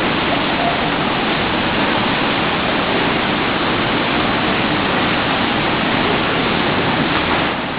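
Steady rush of water in a swimming pool, an even noise with no let-up.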